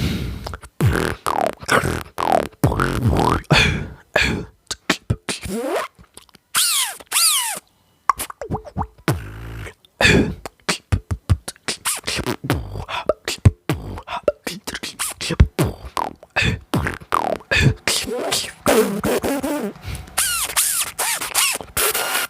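A person beatboxing into a microphone: a fast run of mouth-made kick, snare and hi-hat hits, with a few short pitched vocal glides and brief pauses.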